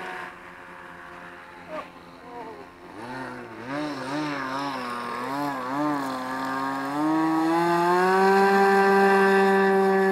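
Radio-controlled model seaplane's engine running. Its pitch wavers up and down with quick throttle changes for a few seconds, then rises about seven seconds in and holds at a steady, louder high run.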